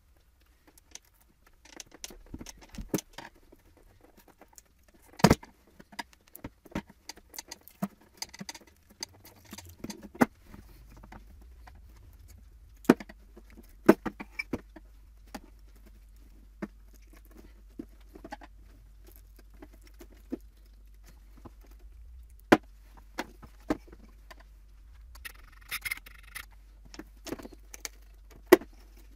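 Plastic Chevrolet Avalanche halogen headlight housing being handled on a glass work surface: scattered, irregular clicks, taps and knocks, a few of them sharp. Near the end comes a crackling stretch as a pry tool works at the edge of the lens to lift it off the housing.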